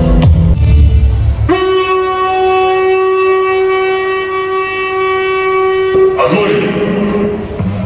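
Dance backing track: music with a heavy beat, then about a second and a half in a single long conch-shell (shankh) blast, held steady at one pitch for about four and a half seconds, before the music comes back in near the end.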